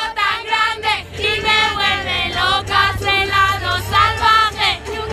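A group of young women singing together loudly, holding and bending the notes, over a steady low hum.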